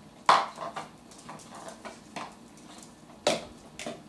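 Six-week-old toy schnauzer puppies giving short, sharp yips while play-fighting, the loudest just after the start and another strong one about three seconds in.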